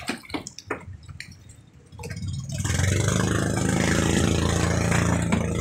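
A few knocks, then about two seconds in a boat engine starts up and runs steadily and loudly.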